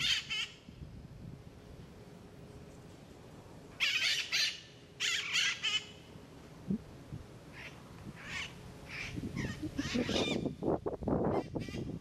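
Red-masked parakeets (cherry-headed conures) giving harsh, screeching calls: two loud bursts about four and five seconds in, then a string of shorter calls. Louder, lower-pitched rough noise fills the last two seconds.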